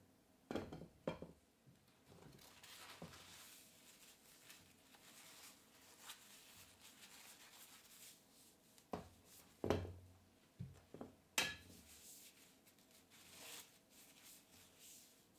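A paper tissue rubbing along stainless steel rods, a faint soft hiss, with several sharp knocks of aluminium linear bearing blocks against the rods and the wooden bench; the two loudest knocks come a little past the middle.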